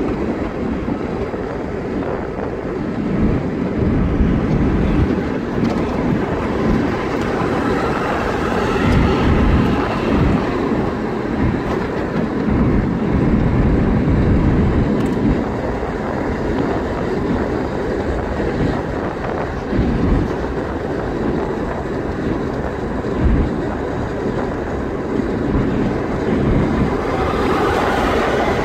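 Steady road noise from inside a car driving at speed on an asphalt road: tyres and wind making a continuous rumble.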